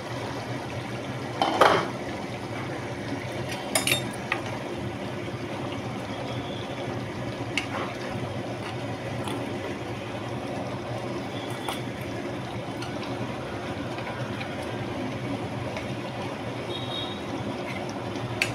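Thick paneer curry gravy bubbling steadily in an uncovered pan, with a loud clink from the glass lid being taken off about one and a half seconds in and a few light clicks of metal on the pan later.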